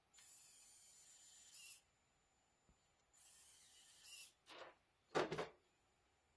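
Two steady hisses, the first about a second and a half long and the second about a second, followed by a few knocks on a hard surface, the loudest about five seconds in.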